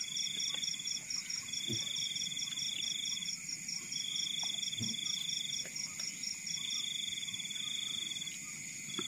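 Evening insect chorus: a high trilling call repeating in bursts of about two seconds with short gaps, over a steadier, higher call pulsing about five times a second. A few faint low knocks sound in between.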